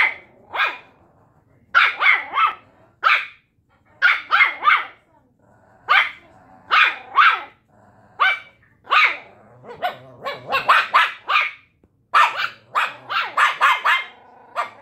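Shih Tzu and Pomeranian puppies barking at each other, short sharp barks in quick runs of two to five with brief pauses between.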